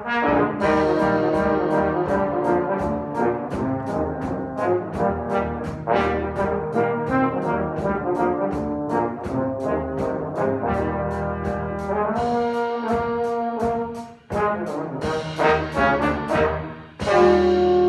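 Brass-and-percussion quintet playing: tuba, trombone and two other brass horns over a drum kit keeping a steady beat on the cymbals. The music breaks off briefly about fourteen seconds in and again just before the end, then comes back with a loud held chord.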